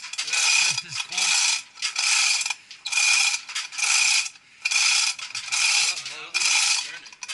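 Hand ratchet being cranked in repeated strokes, about one a second, each stroke a quick run of pawl clicks.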